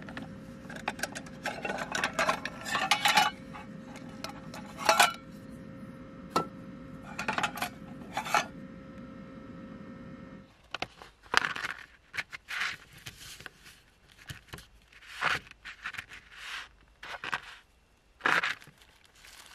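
Small items being handled and set down on a wooden board: light knocks, clinks and rustling. A steady low hum sits under the first half and stops suddenly about ten seconds in.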